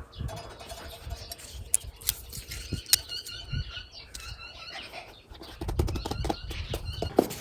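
Wind rumbling on the microphone, with scattered clicks and a run of short high squeaks about three to four seconds in.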